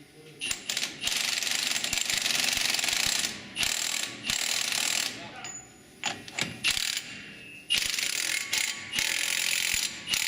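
Ratchet wrench being worked in four spells of fast clicking, each lasting one to two seconds, on a pickup truck's brake assembly.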